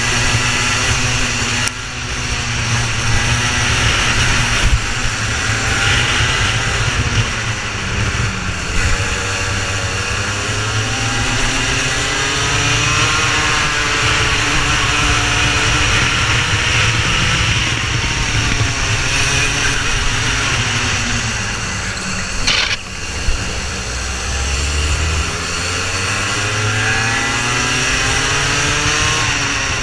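Racing kart engines at race pace, their pitch repeatedly rising and falling as the revs climb and drop. A brief sharp click about two-thirds of the way through.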